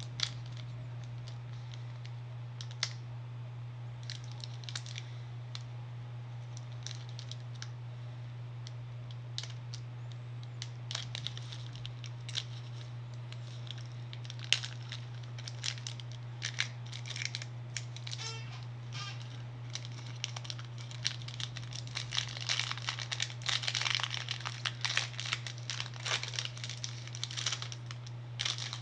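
Pokémon booster pack's foil wrapper crinkling and tearing open, with cards shuffled and handled in irregular crackles and clicks that grow busier near the end. A steady low hum runs underneath.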